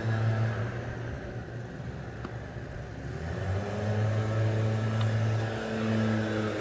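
An engine running steadily, its hum shifting in pitch a little about halfway through.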